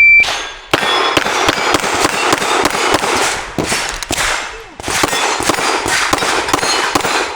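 A shot timer beeps at the start, then a rapid string of pistol shots, most followed by the ring of steel knockdown plates being hit. The firing pauses briefly about four seconds in and then resumes.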